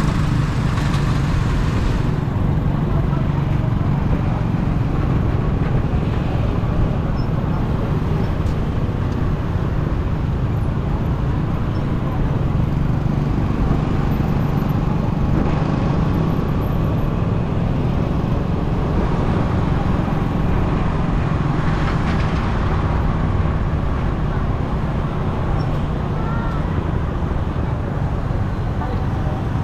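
Motorcycle engine running at a steady cruise while riding through city traffic, a continuous low drone with road and traffic noise from passing motorbikes, tuk-tuks and cars.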